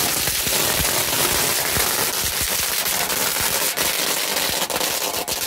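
A long string of firecrackers going off on the road, a rapid, unbroken crackle of many small bangs.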